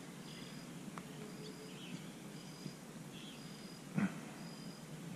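Quiet outdoor ambience with a short, high call repeating about once a second, like a bird or insect, and a single sharp knock about four seconds in.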